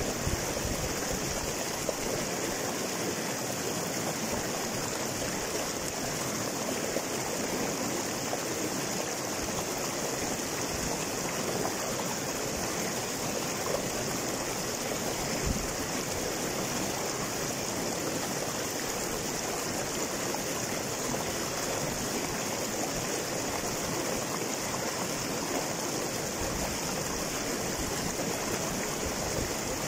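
River water rushing and splashing over and between boulders in small cascades, a steady, unbroken rushing sound.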